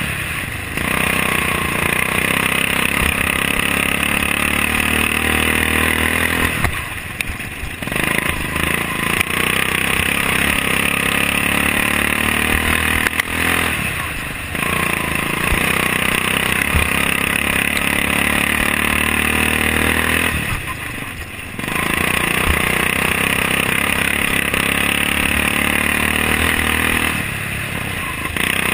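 Racing lawn tractor's Briggs & Stratton Vanguard engine running hard at high revs, dropping briefly about every seven seconds and picking back up, as the mower goes round the cone-marked turns of a dirt track.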